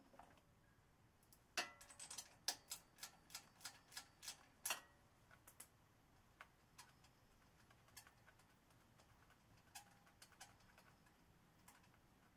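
Light clicks from hand work at a small engine's spark plug: a run of about a dozen, roughly three a second, starting a couple of seconds in, then a few scattered single clicks.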